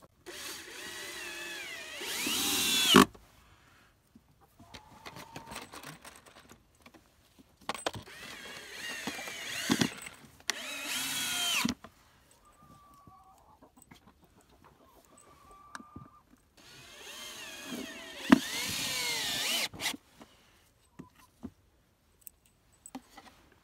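Power drill driving screws into wood in three runs of about three to four seconds each, the motor's pitch wavering and the sound building louder toward the end of each run, with small clicks of handling in between.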